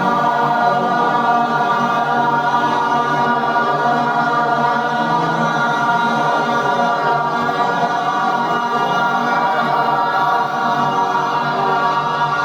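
A group of voices chanting a long, steady yogic 'Aaa' in unison, one held tone that does not break.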